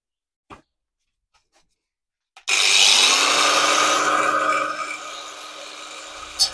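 Angle grinder switched on about two and a half seconds in, its motor whine rising as it spins up, then grinding through a steel exhaust pipe to cut off its bend. The noise is loud for about two seconds, then eases to a quieter run for the rest.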